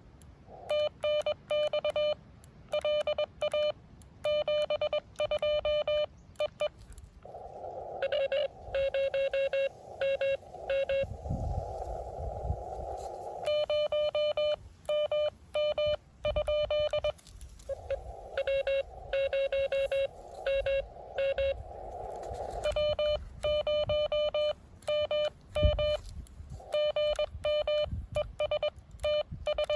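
Morse code on an amateur radio transceiver: the operator's own keyed sidetone beeping in quick dots and dashes, twice giving way to a few seconds of narrow filtered band hiss in which a fainter station's Morse code answers.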